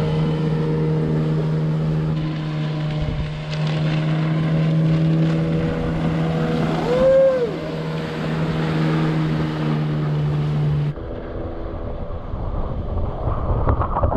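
Small outboard motor on an inflatable boat running steadily at towing speed, a steady drone. A short rising-and-falling tone cuts across it about seven seconds in. The engine drone stops abruptly about eleven seconds in, giving way to water rushing and splashing with wind on the microphone.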